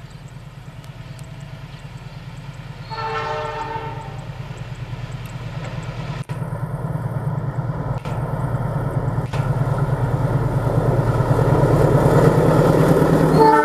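Diesel locomotive of the Argo Wilis express approaching at speed, its engine rumble growing steadily louder. The horn sounds once for about a second, about three seconds in, and starts again right at the end.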